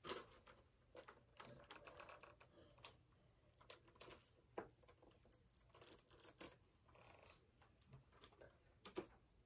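Near silence: room tone with faint, scattered clicks and short rustles.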